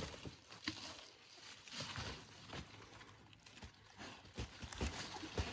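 Irregular faint clicks and crunches of a child's scissors squeezing at a thick pumpkin stem, with rustling of the vine leaves around it.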